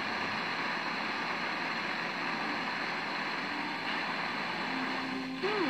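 FM radio static: a steady hiss as a weak sporadic-E (E-skip) skywave signal on 94.5 FM fades out. A faint voice comes back through the noise near the end.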